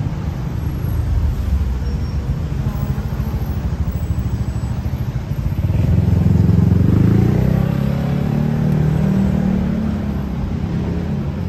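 Road traffic: a steady low rumble of engines, with one vehicle's engine growing louder and rising in pitch about halfway through, then fading.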